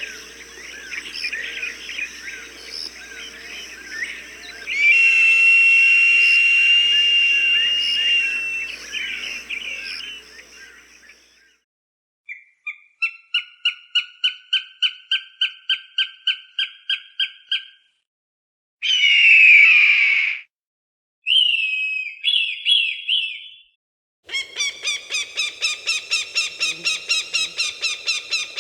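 Recorded hawk calls: after a dense stretch of chirping and whistling, a run of rapid repeated cries at about three a second, a single harsh scream, two shrill calls, and another quick series of cries, each set separated by short silences.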